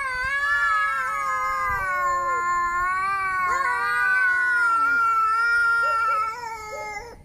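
A cat yowling in one long, wavering, drawn-out caterwaul, the cry of an angry cat, which fades away near the end.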